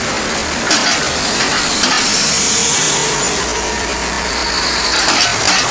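Loose manhole covers clanking as a city bus and traffic roll over them: a few sharp clunks, one about a second in and another near two seconds, then two more close together near the end, over steady traffic and tyre noise.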